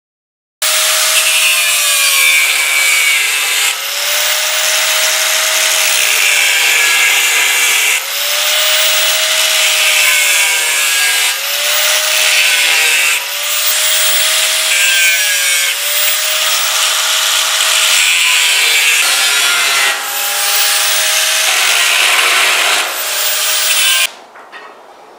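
Angle grinder with a cutting disc cutting through steel plate, its motor whine sagging and recovering as the disc bites, in a run of cuts with brief breaks. It cuts off suddenly near the end.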